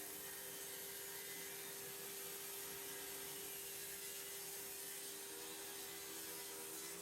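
Table saw running steadily with no cut being made: an even whir with a constant hum.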